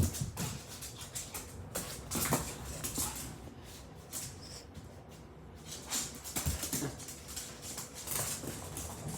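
A dog playing with its toy: irregular knocks, thumps and pattering scuffles, with a sharp knock at the start and a few more thuds about two seconds in and again after six seconds.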